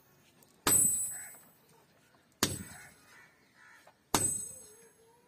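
Three hammer blows on a red-hot iron cleaver blank lying on an anvil block, nearly two seconds apart. Each is a sharp metallic clang with a high ring that dies away over about a second.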